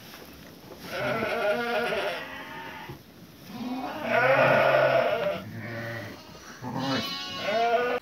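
Sheep bleating, a ewe with her newborn lamb just after lambing: several long, wavering bleats, the loudest about four seconds in.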